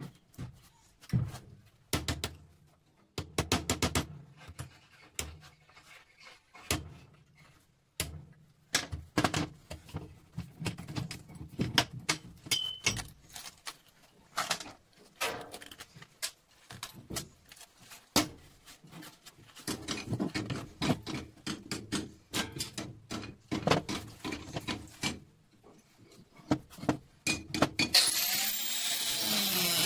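Hand tools clicking, scraping and knocking against small metal scrap parts as an electric motor's parts are pried apart to salvage the copper. Near the end a steady, louder noise with sweeping tones comes in.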